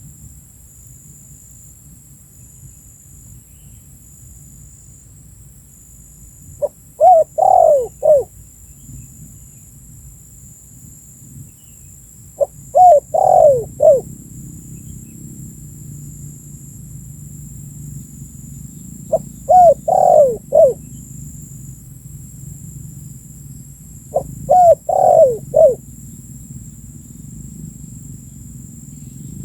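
Spotted dove cooing, a calling track meant as a lure: four phrases of several short falling notes each, repeated about every six seconds.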